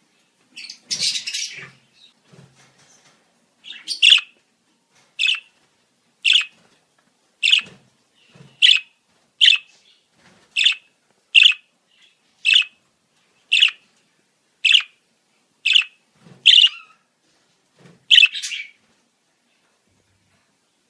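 Budgerigar calling: a short, harsh chatter about a second in, then a run of about fourteen sharp chirps, roughly one a second.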